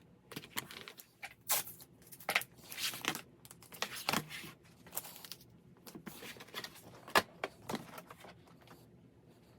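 Handling noise from craft materials: a series of irregular rustles, scrapes and sharp clicks, like a cut sheet being bent, peeled and pulled off a cutting mat.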